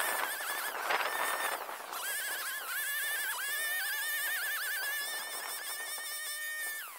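Shindaiwa T236TS 21 cc two-stroke brushcutter running at high revs with a steel weed blade. Its high whine keeps dipping and recovering as the blade bites into weeds, and near the end it drops off sharply and revs back up.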